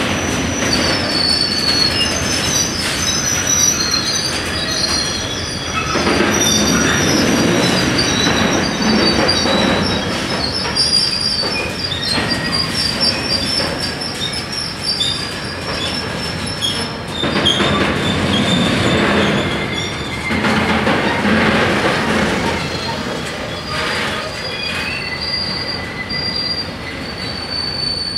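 Freight train of tank wagons rolling past at a level crossing, the rumble of wheels on rail swelling each time a bogie passes. High, wavering wheel squeal rides over it throughout.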